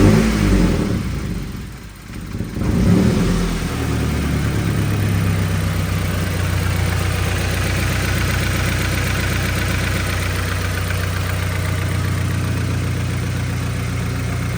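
2013 Subaru Impreza's 2.0-litre non-turbo flat-four engine just after starting: it flares up, dips, rises again about three seconds in, then settles into a steady, even idle. It is running evenly on all four cylinders now that the cylinder-1 spark plug, damaged by spark tracking to ground and causing the misfire, has been replaced.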